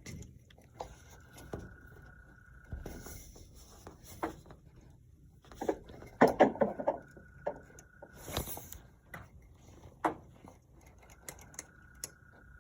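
A repeated croaking call heard from indoors: a steady, fairly high tone about two seconds long, three times about five seconds apart. It is thought to be perhaps a frog. Louder knocks and rustling about six seconds in.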